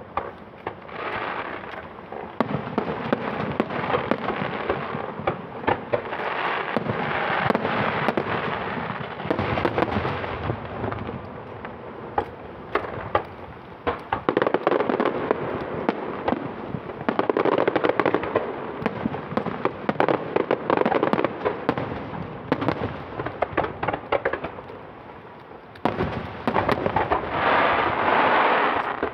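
Fireworks display: a continuous barrage of bursting shells and crackling, with many sharp bangs packed together. It swells and eases in waves and surges again near the end.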